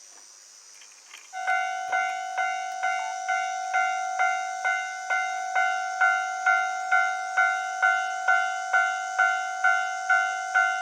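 Japanese railway level-crossing warning bell starting to ring about a second and a half in, then repeating evenly at about two rings a second, each ring decaying quickly: the crossing alarm for an approaching train.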